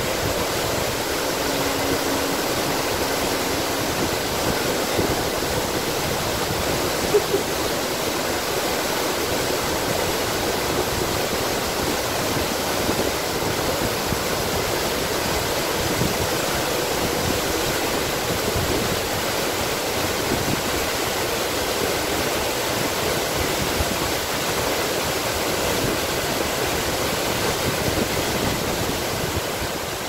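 Tiu Kelep waterfall pouring onto the rocks: a steady, unbroken rush of falling water.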